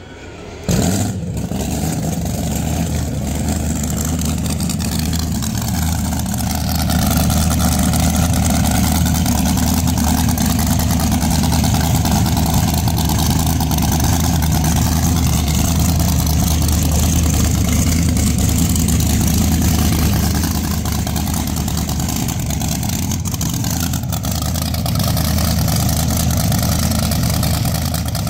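Car engine running at a steady idle close by. It comes in suddenly about a second in and then holds even throughout.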